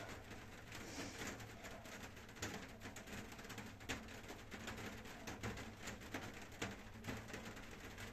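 Bare feet landing softly on an exercise mat during leg exercises, in irregular thuds, together with the exerciser's breathing.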